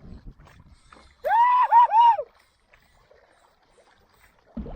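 A person's high-pitched excited shout, three quick rising-and-falling notes, about a second in. Faint water and wind noise sit under it.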